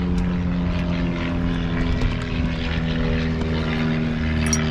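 Steady motor drone holding one even pitch, with a low rumble underneath.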